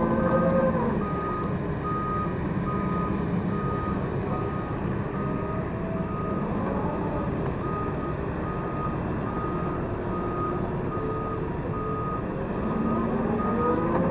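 Hyundai wheeled excavator's travel alarm beeping steadily, about three beeps every two seconds, over the diesel engine running. Near the end the engine revs up and its pitch rises.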